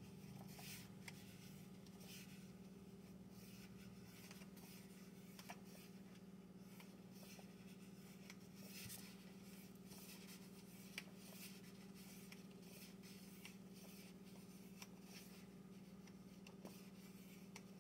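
Faint rustles of book pages being turned every second or two, over a low steady hum, with one small tick about eleven seconds in.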